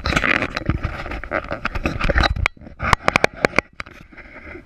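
Camera handling noise: the camera scraping and bumping against the glass panels and metal railing, a dense rustle of rubbing and clicks that gives way about three seconds in to a quick run of sharp knocks before it fades.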